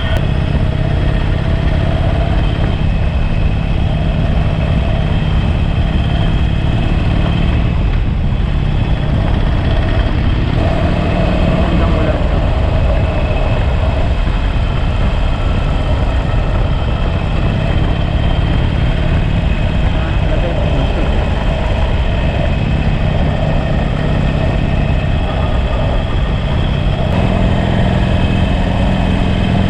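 Harley-Davidson Sportster V-twin engine running under way, its pitch shifting up and down several times with the throttle and gears, over a steady heavy rumble of wind.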